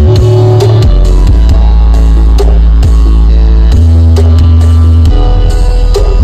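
Music blasted very loudly from a "sound horeg" rig, an East Javanese truck-mounted wall of speakers, with deep sustained bass notes that shift several times over a beat of drum hits.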